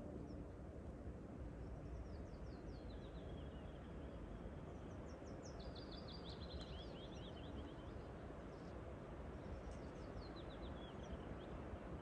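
A songbird singing three short phrases a few seconds apart, each a quick run of high notes falling in pitch. Under it is a steady low rumble of outdoor background noise.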